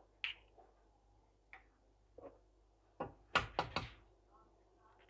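Eggshell knocked sharply against a hard edge to crack it: about five quick knocks in under a second, some three seconds in, after a few lighter clicks and taps.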